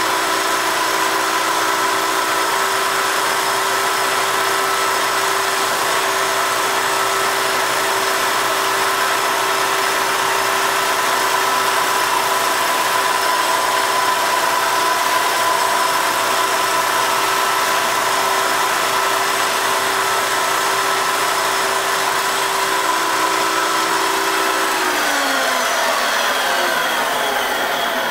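Lathe and tool post grinder running together, the small grinding stone spinning inside the jaws of a three-jaw scroll chuck to true them, with a steady mechanical hum and several steady high tones. The machinist thinks the sound may mean the stone was taking a light cut, though it shows no colour. About 25 seconds in the tones fall in pitch and the sound fades as the machines wind down.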